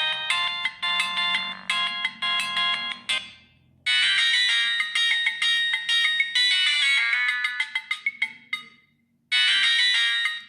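Siemens C75 mobile phone playing ringtone melodies, several notes sounding at once. One tune stops about three seconds in, a second starts a moment later and fades away, and a third begins near the end.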